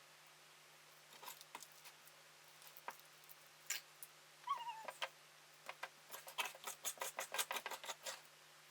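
Light clicks and taps of a utensil working soft homemade clay in a bowl, coming quicker near the end, with one short, faint cat mew about four and a half seconds in.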